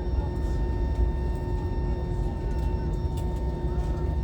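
Steady low rumble of a jet airliner's cabin with the plane taxiing after landing, with a few constant hums from the engines and cabin air system.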